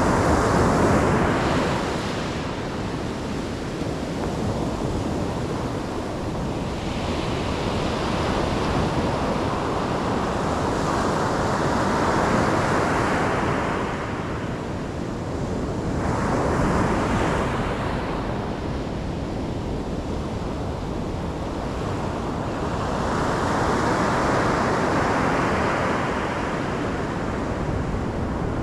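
Ocean waves breaking and washing onto the shore, a continuous rush that swells and falls back in slow surges every several seconds.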